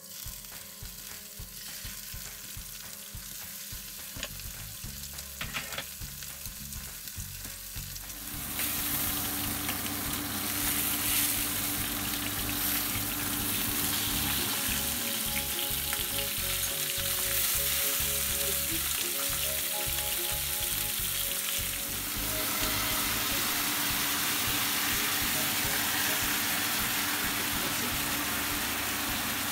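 Cod fillets sizzling as they fry in hot oil in a pan, the sizzle growing louder about eight seconds in, with scrapes of a spatula and fork as the fillets are turned.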